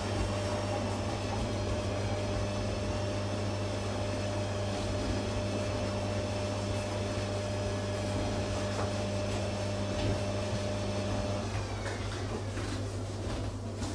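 Steady low mechanical hum with a higher steady tone that stops about eleven and a half seconds in, over faint scuffs of hands working a cloth across a laminate floor.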